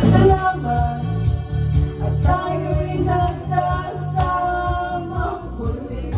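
Karaoke: a woman and a man singing into microphones over a backing track with a steady bass beat.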